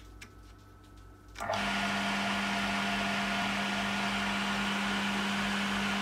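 Small electric water pump switches on abruptly about a second and a half in and runs steadily with a strong motor hum.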